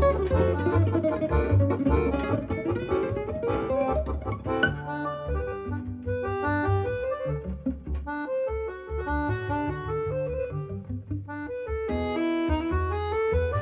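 Instrumental music played back over a pair of floor-standing hi-fi loudspeakers: a low bass line pulsing under a melody that steps from note to note.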